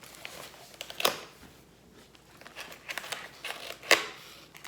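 Packaging being handled: scattered sharp clicks and rustles of plastic and card, with two louder knocks, one about a second in and one near the four-second mark.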